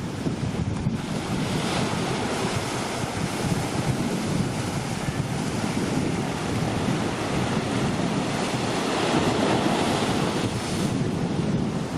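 Heavy surf from a typhoon swell breaking against a seawall, a continuous rushing roar, with wind buffeting the microphone. The surf swells louder about two seconds in and again near the end.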